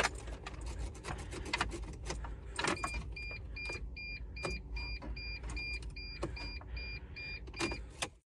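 Dodge Sprinter's dashboard warning chime beeping in short pips about two and a half a second, pausing at first and resuming about three seconds in, with scattered clicks and a low steady hum as the ignition is switched on and off. The engine does not crank: a no-start with not even the starter relay clicking.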